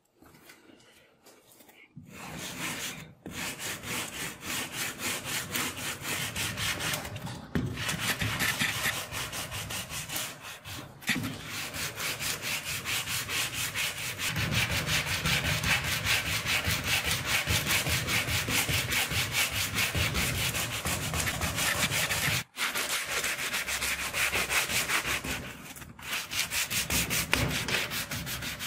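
A sanding block rubbed back and forth along the black-coated steel scabbard of a Mauser 98K bayonet, in quick, even strokes, sanding down its finish. It starts about two seconds in and stops briefly a few times.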